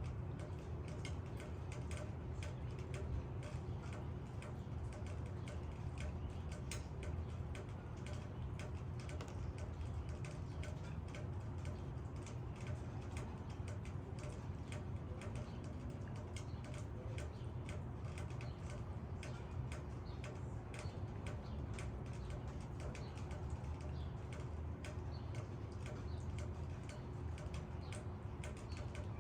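Raindrops falling on leaves: a dense, irregular patter of small ticks over a steady low hiss of rain.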